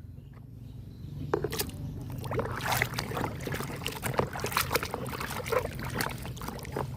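Water splashing and sloshing in a basin as a plastic toy is washed by hand. The splashes come irregularly, starting about a second in.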